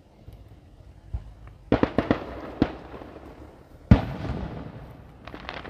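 Aerial fireworks going off: a soft thump about a second in, then a quick run of sharp bangs around two seconds and another just after. Near four seconds comes one loud boom with an echoing tail as a gold shell bursts, and a few faint crackles follow near the end.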